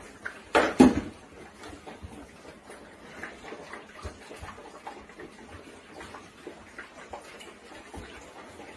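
Golden retriever puppies eating from food bowls: low, steady chewing and slurping with scattered small clicks against the bowls, and two short loud sounds close together just under a second in.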